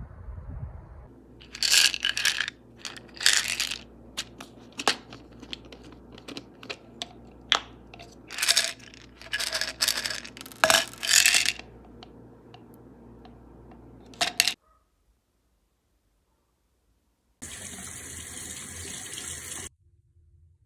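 Tablets rattling and clicking in a plastic Tylenol bottle as it is shaken and tipped, a run of rattles lasting about thirteen seconds with several loud bursts. After a short silence comes a steady rush of noise for about two seconds that cuts off suddenly.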